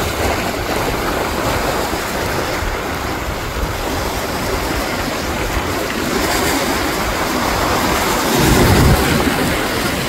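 Strong ocean surf breaking on rocks and foamy water washing in close to the microphone, a steady rushing wash that swells into a louder, deeper surge about eight seconds in.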